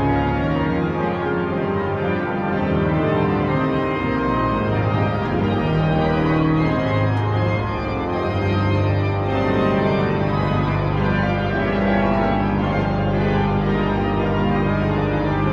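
Church pipe organ playing a loud, fast passage in dense full chords, with a deep pedal bass note held through the second half.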